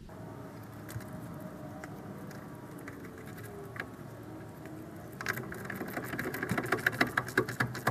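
Hand ratchet wrench clicking rapidly as it spins a nut down, starting about five seconds in after a low, steady background.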